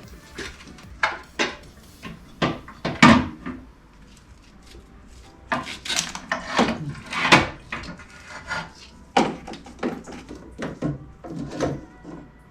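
Irregular clicks and knocks of hand tools and metal engine parts being handled during timing-chain-area disassembly on an engine, with a pause of a couple of seconds near the middle.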